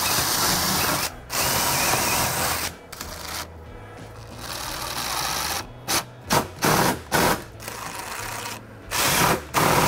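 Cordless drill run in bursts, boring pilot holes through PVC trim into the metal door frame. There are two runs of about a second at the start, then a quieter stretch, then several short bursts.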